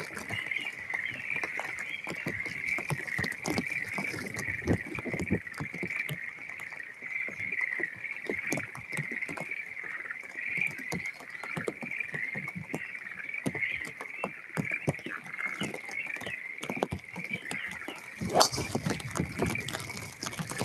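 A golf driver strikes the ball off the tee in one sharp crack about eighteen seconds in. Under it runs a steady high-pitched chorus of frogs, with scattered taps of falling rain.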